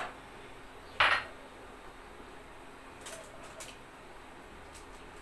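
Kitchenware clattering: one sharp clink about a second in, then a couple of faint clicks.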